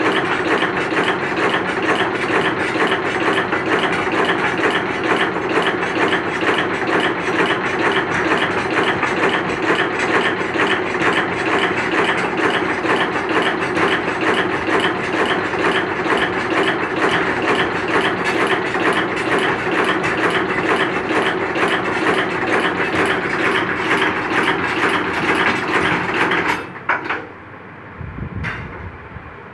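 Brush-making machine running, a fast, regular mechanical clatter from its cranks and gears as it winds plastic bristles into a brush. It stops abruptly about 27 seconds in, followed by a couple of separate knocks.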